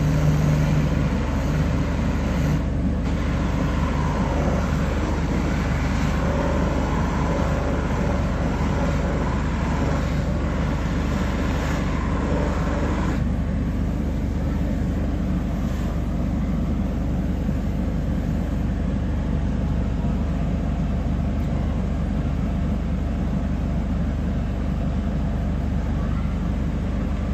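Shoe-repair workshop machine's electric motor running steadily, a continuous loud drone with a dense low hum, busier in the mid range for the first thirteen seconds or so, then steadier.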